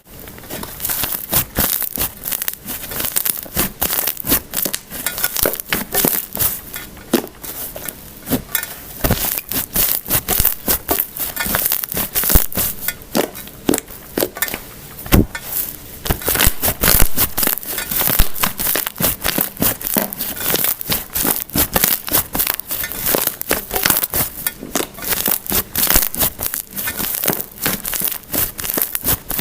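Slime being squished and pressed by hand, making a dense, irregular run of sticky clicks and crackling pops.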